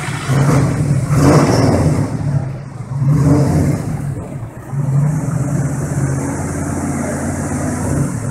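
First-generation Chevrolet Corvette's V8 revving hard in three long surges, with short dips between them, while the rear tyres spin in place in a standing burnout.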